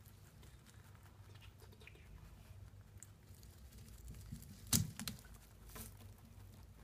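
A lop-eared rabbit chewing leafy greens: faint, quick nibbling and crunching. A sharper knock a little under five seconds in is the loudest sound.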